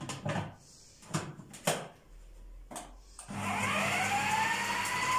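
Plastic clicks and knocks as the food processor's bowl and lid are handled and locked, then about three seconds in its electric motor switches on, its whine rising as it spins up and settling into a steady run, beating the eggs and sugar for a sponge cake.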